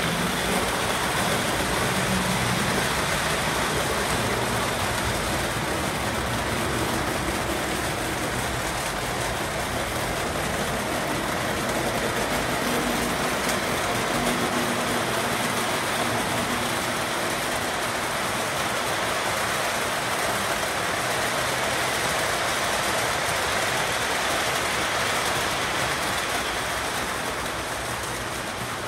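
Model freight train running on layout track: a steady rolling rumble of wheels and motor, easing slightly near the end.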